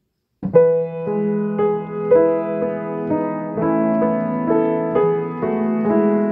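A keyboard plays the instrumental introduction to a responsorial psalm setting: held chords that start about half a second in and change every half second or so.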